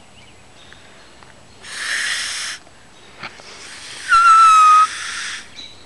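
Grass-blade whistle: breath blown across a blade of grass stretched between the thumbs. A first blow about two seconds in is only a rush of air with no note; a second blow about four seconds in sounds a loud, high-pitched squealing note that sags slightly in pitch and lasts under a second, followed by a little more breath noise.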